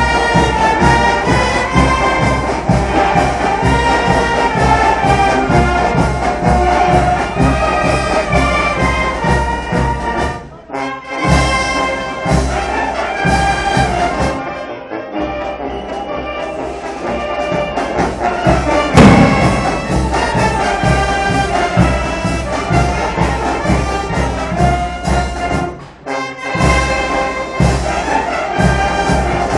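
Mexican brass band (banda de viento) playing: sousaphones, trumpets and trombones over a steady bass-drum beat. The music drops out briefly twice, and there is one loud accent partway through.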